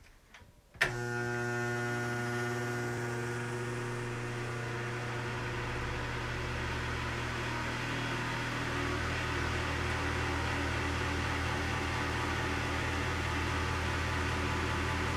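Ceiling bathroom heater fan switched on with a click about a second in, then running from a cold start with a steady electric hum. A deeper hum builds in around halfway through.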